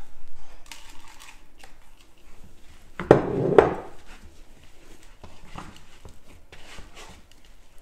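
A glass flour jar being handled and set down with two hard knocks about three seconds in, amid soft rustling and small knocks of hands kneading bread dough in a wooden bowl.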